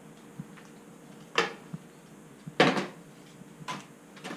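Thin wooden sticks clattering as they are gathered up and dropped into a plastic tub: a few short knocks about a second apart, the loudest a little past halfway.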